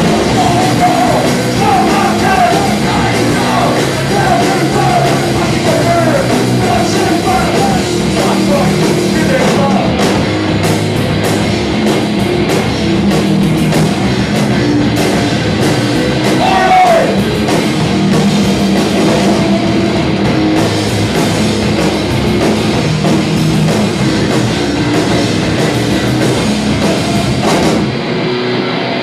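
Anarcho-punk band playing live: loud distorted electric guitar, bass and drum kit, with vocals over the first third and once more about halfway. Near the end the cymbals drop out and the sound thins.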